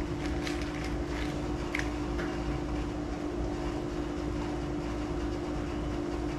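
A steady machine hum with a low drone underneath, and a few light clicks in the first couple of seconds as small metal parts, a snap ring and the transmission housing, are handled on the bench.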